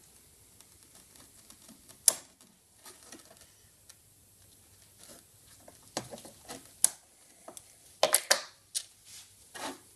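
Clicks and knocks of locking pliers (vise grips) and small steel lathe cutting arms being handled on a workbench while a tight retaining screw is worked loose: one sharp click about two seconds in, then a run of clicks and knocks in the second half.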